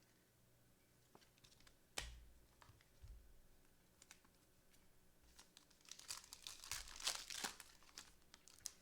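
A trading-card pack's foil wrapper being crinkled and torn open for about two seconds near the end, after a sharp click about two seconds in and a soft thump.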